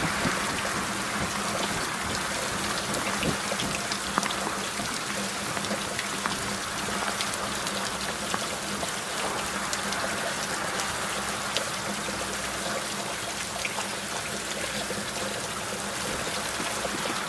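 Heavy rain falling on a motorcycle and its rider: a steady hiss peppered with many small drop hits.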